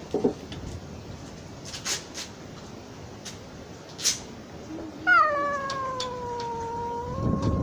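A stray cat's long threatening yowl at a rival cat, starting about five seconds in. It begins high, falls in pitch and then holds for over two seconds.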